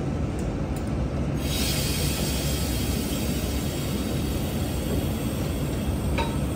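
Stationary V-set electric multiple unit running its onboard equipment with a steady low rumble. A steady hiss joins in about a second and a half in, and there is a short clank near the end.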